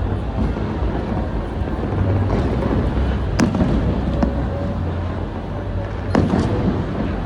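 Fireworks display: a continuous low rumble of bursting shells, with sharp bangs about three and a half and six seconds in.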